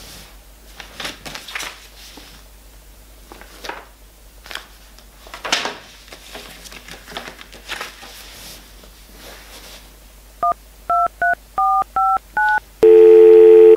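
Soft paper rustles from handling takeaway menus, then a mobile phone's keypad tones as a number is dialled: about seven short two-note beeps in quick succession. Near the end a steady ringing tone starts as the call goes through.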